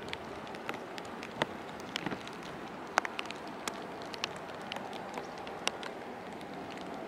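Rain falling, with irregular sharp taps of raindrops landing close by over a steady hiss.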